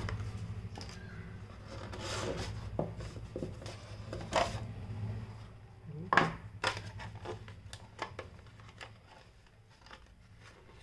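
Cardboard packaging being handled: a molded insert tray lifted and slid out of its box, with rubbing and scraping and several short knocks, the sharpest about four and six seconds in. A low steady hum lies under the first half.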